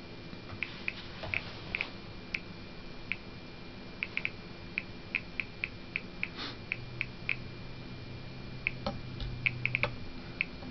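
CDV-700 Geiger counter with an LND7311 pancake probe clicking at random, uneven intervals, about two to three clicks a second with occasional quick clusters. It is counting mostly beta radiation from a uranium-bearing green Vaseline glass juicer, at a rate of around 200 counts per minute.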